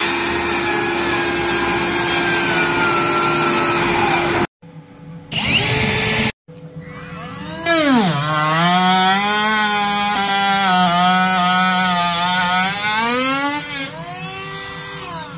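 Cordless circular saw ripping through a plywood sheet for about four seconds. Later a cordless rotary tool with a cutoff wheel cuts into a clear plastic tub: its high whine drops in pitch as the wheel bites, wavers through the cut, and rises again as it comes free.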